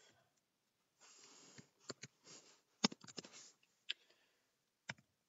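A breath drawn in through the nose, then a handful of scattered keystrokes on a computer keyboard as a line of code is edited, the loudest about three seconds in.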